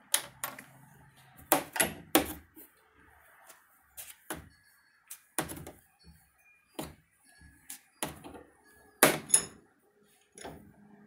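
Irregular sharp metal clanks and clicks from a valve spring and its collars being handled and clamped in a bench vise on a steel bench top. The loudest knocks come in the first couple of seconds and again about nine seconds in.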